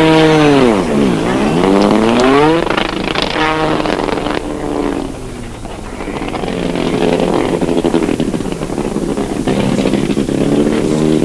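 A vehicle engine revving hard. Its pitch drops and then climbs again in the first few seconds, then it carries on running unevenly.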